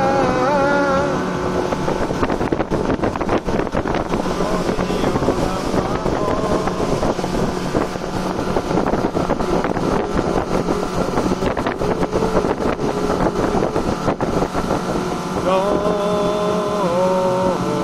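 Motorboat engine running steadily under way. Music with held sung notes comes over it briefly at the start and again near the end.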